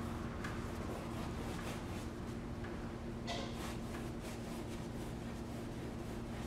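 Paintbrush strokes on a stretched canvas as acrylic paint is brushed on: faint, soft scratchy swishes, a brighter one about three seconds in, over a steady low hum.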